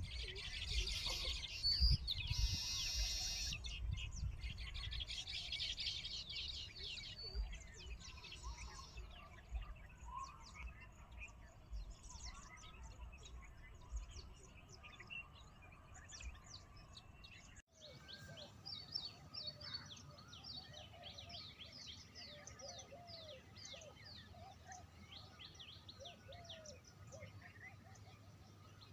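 Wild birds calling and chirping, with many voices overlapping. Dense, loud, rapid chattering calls fill the first few seconds, then scattered chirps and whistles follow over a low rumble. About two-thirds of the way through the sound cuts abruptly to a busy chorus of many small birds chirping.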